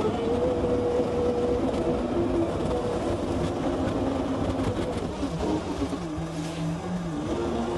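Engine of an earth-moving machine running steadily, with a tone that shifts in pitch now and then.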